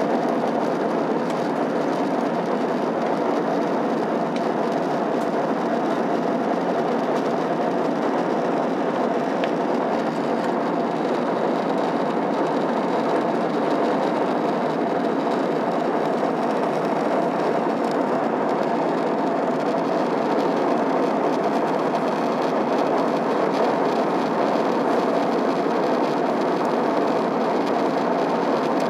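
Steady cabin noise of an Airbus A321-211 in flight, heard beside the wing: the even rush of airflow with the hum of its CFM56 turbofan engines and a faint thin high whine.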